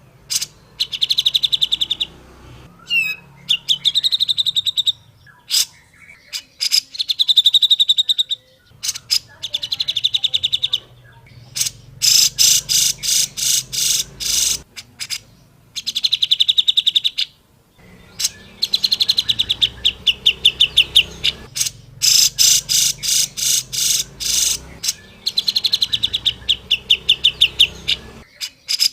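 Grey-cheeked bulbul (cucak jenggot) calling: loud, rapid chattering trills in bursts of a second or two, repeated with short pauses.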